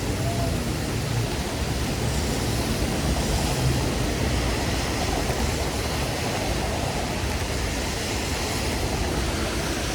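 Heavy rain falling steadily on a city street: a dense, even hiss with a low rumble underneath.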